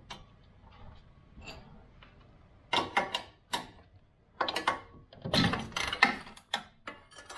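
Spanner working the nut off the upper control arm's ball joint: metallic clicking and clinking in four short bursts, starting a little under three seconds in.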